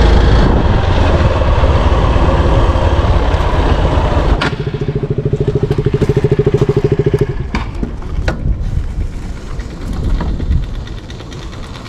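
Motorcycle on a rough dirt trail: a heavy low rumble for about four seconds, then, after a click, the engine is heard pulsing evenly at low revs for about three seconds. It ends in a quieter stretch of scattered clicks and knocks.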